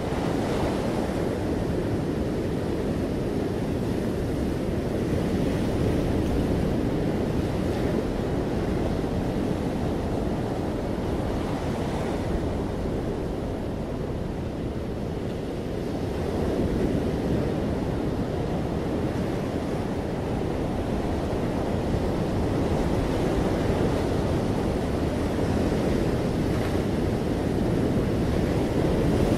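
Ocean surf breaking offshore and washing up a sandy, rocky beach: a continuous rushing rumble that eases slightly a little past the middle and builds again toward the end.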